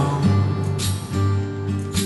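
Background music: a song with guitar, in a pause between the sung lines.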